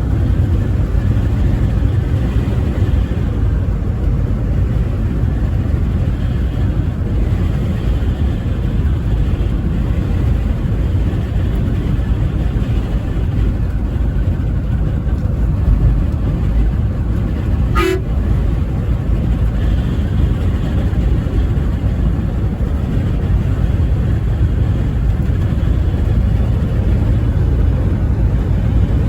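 Steady low road and engine rumble of a truck driving at highway speed, with one short sharp click about two-thirds of the way through.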